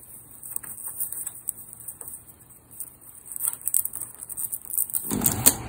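Cardboard packaging being handled as the end flap of a product box is worked open: scattered light taps, clicks and rustles, with a louder rustle near the end.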